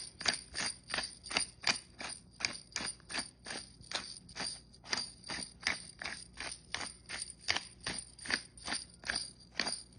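Pepper mill being twisted over and over, grinding pepper in an even run of crunchy clicks, about three a second.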